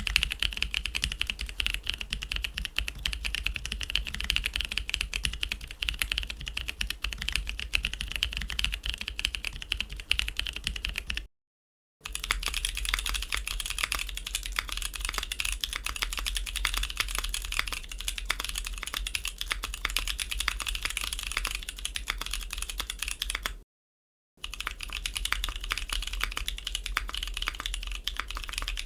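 Continuous typing on a mechanical keyboard fitted with NovelKeys Blueberry tactile switches: a dense run of clacky keystrokes. It comes in three stretches split by two brief cuts to silence, about a third and two thirds of the way through, and the tone of the clacks shifts a little from one stretch to the next.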